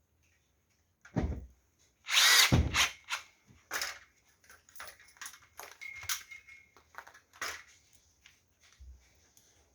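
Short loud scraping bursts during work on a ceiling light fixture: one about a second in, a longer one about two seconds in, another near four seconds. Then scattered clicks and rattles of parts being handled.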